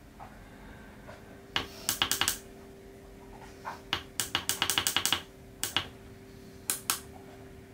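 Keypad buttons of a Launch BST-460 battery tester being pressed: small clicks, some single and some in quick runs of several, with the longest run in the middle, over a faint steady hum. The presses step the battery's rated cold cranking amps down toward 1000 A before the test.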